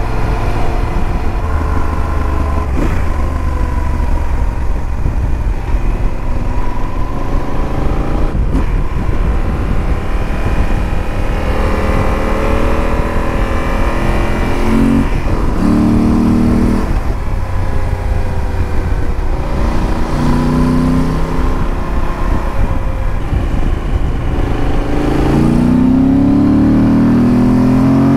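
Motorcycle engine running while riding, its revs stepping up and down through the gears and climbing steadily near the end as it accelerates. There is a strong low rumble of wind on the helmet-mounted camera.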